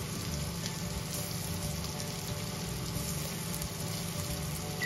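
Sliced onions frying in hot cooking oil in a steel pot, a steady sizzle and crackle, with spice powders freshly sprinkled over them.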